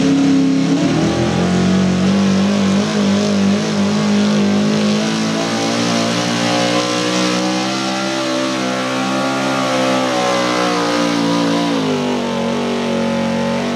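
Small-block V8 of a Chevrolet 4x4 pulling truck running at full throttle under heavy load as it drags a weight-transfer sled. The note holds high and fairly steady, then drops a little near the end.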